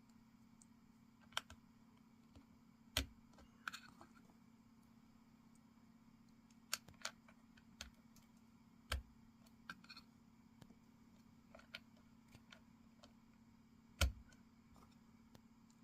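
Keystrokes on a Keychron K8 Pro mechanical keyboard with PBT keycaps: scattered single key presses at an unhurried, irregular pace, with three louder, deeper strikes about three, nine and fourteen seconds in. A faint steady hum lies underneath.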